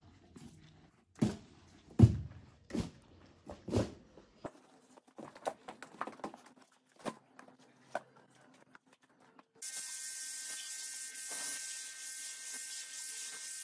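A heavy wet rug is lifted and flopped onto a concrete floor, giving four heavy slaps in the first four seconds. Lighter splashy clicks follow from rubber boots on the wet floor. About nine and a half seconds in, a pressure-washer jet starts spraying water onto a rug, a sudden steady hiss with a faint whine.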